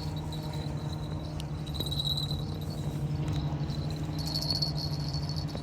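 Insects trilling steadily in a high, slightly pulsing tone over a low steady hum.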